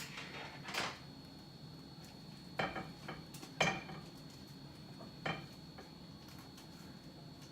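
A metal utensil clinking and scraping against a cooking pot about four times while the soup and rice are stirred.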